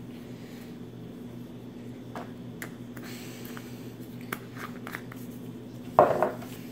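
Handling of a blue glass supplement bottle: light clicks and rustles as the cotton wad is pulled out and the cap is put back on, then one louder knock about six seconds in as the bottle is set down into its cardboard box. A steady low hum runs underneath.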